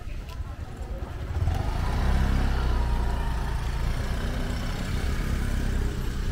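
Motor scooter engine running close by, growing louder about a second in as it pulls away, then easing off near the end.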